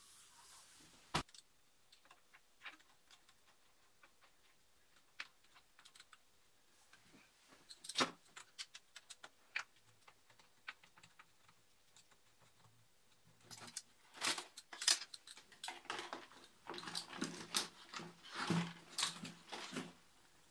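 Hands taking parts off a benchtop milling machine: scattered light clicks and knocks, with a sharp click about a second in. A busier run of quick clicking and rattling fills the last six seconds as the pleated plastic bellows way cover is handled.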